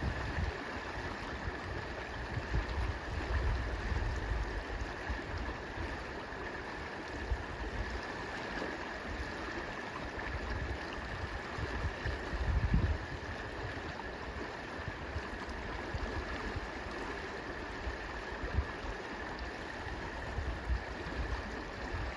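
The South Platte River flowing, a steady even rush of moving water. Low rumbles of wind on the microphone come and go, mostly near the start and again a little over halfway through.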